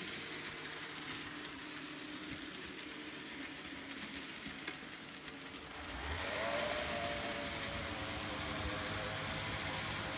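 TT scale model trains running on their track: a steady hiss of small wheels rolling on the rails and small electric motors, with a thin steady motor whine joining about six seconds in.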